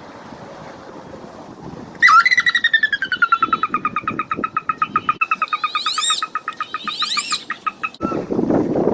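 A loud bird call: a rapid trill of about nine pulses a second that starts high, drops and then holds level, with two quick rising whistles over it near its end. A low noisy rumble follows right after the trill stops.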